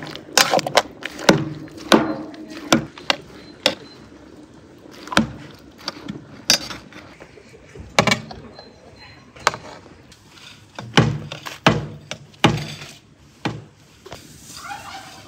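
Irregular knocks and clunks of a metal ladle striking the sides of a large aluminium pot as it stirs strawberry jam.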